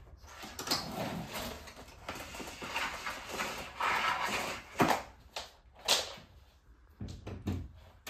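Power cord being pulled out of a canister vacuum cleaner and handled toward the wall socket: irregular rustling and scraping with a few sharp clicks, the loudest about five and six seconds in. The vacuum motor is not running.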